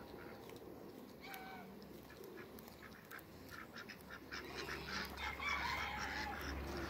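Domestic fowl calling: a short call about a second in, then a cluster of calls mixed with sharp clicks over the last few seconds.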